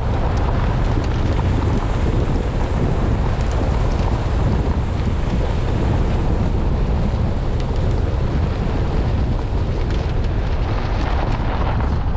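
Wind buffeting the microphone of a camera on a moving 4x4, over the steady rumble of the vehicle driving on a gravel track, with scattered faint ticks.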